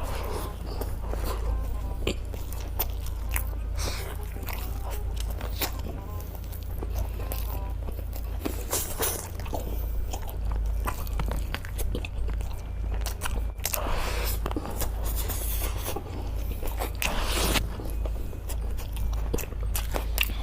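Close-miked eating of biryani: chewing and biting with many sharp mouth clicks and a few longer smacking, crunchy bites, over a steady low hum.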